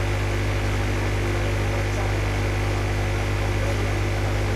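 Steady electrical mains hum, a low drone with a ladder of overtones over a background hiss, unchanging throughout.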